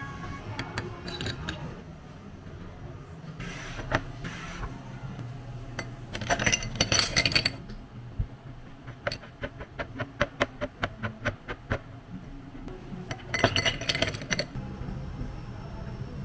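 Clinking and rattling of hard items from drink making, in three bursts, with a run of quick, evenly spaced clicks in the middle, over faint background music.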